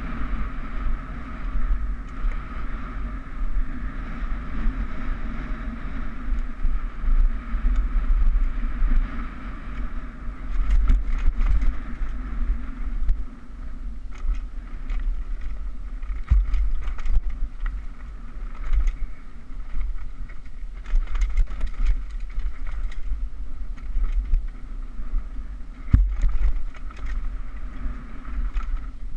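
Downhill mountain bike riding fast over a dirt trail: wind buffeting the GoPro's microphone and tyres rolling on the dirt, with frequent knocks and rattles as the bike hits bumps and roots.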